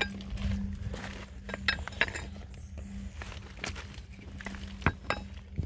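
A 500 mm Big Ben screw-in ground anchor being turned down through limestone gravel with a bar, stones grating and clinking against the metal in scattered knocks and scrapes. A steady low hum runs underneath.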